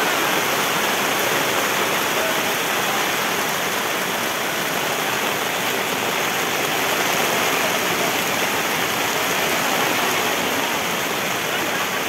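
Heavy tropical downpour with strong wind over breaking surf: a steady, dense hiss that keeps the same level throughout.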